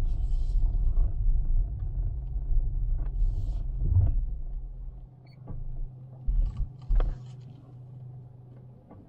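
Car heard from inside the cabin: a low rumble of engine and tyres on a rough road that dies down about five seconds in to a steady low hum as the car comes to a stop, with a few short knocks.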